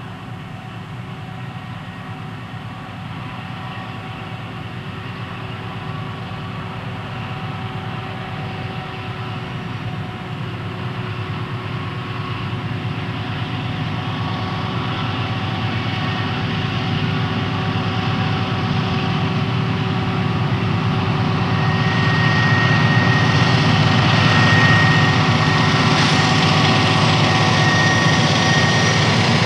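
Diesel freight locomotives, a Cotton Belt GE B40-8 leading an SP GP40M-2, approaching with engines running. They grow steadily louder until the lead unit passes close about three quarters of the way in.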